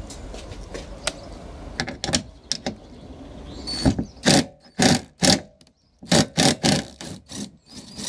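Cordless impact driver with a 10 mm socket hammering in a string of short trigger bursts, about nine, from about halfway through, undoing a bolt that holds a car's rear spoiler to the boot lid. A few sharp clicks come before the bursts.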